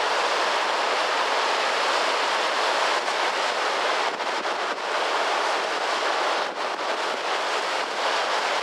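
Rapids at the brink of Niagara Falls rushing and spilling over the edge in a steady, unbroken rush of white water.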